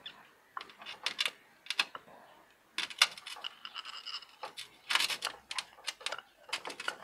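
A red-handled hand tool working at the base of a small bonsai in its pot: a run of irregular clicks and short scrapes, with a longer scrape about four seconds in.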